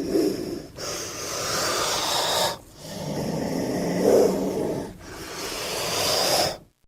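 Giant snake creature sound effect, made from titanoboa sounds: after a short tail, three long, breathy hisses of about two seconds each with a low rumble beneath, then a sudden cutoff.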